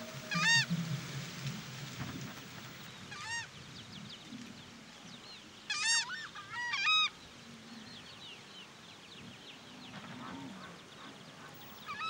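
Southern screamers (tachã) calling: a series of loud, goose-like honks. One comes near the start, another about three seconds in and a quick pair a few seconds later, with fainter calls between and after.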